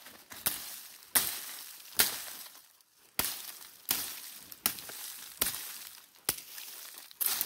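Footsteps crunching through dry leaf litter, a slow, uneven step about once a second.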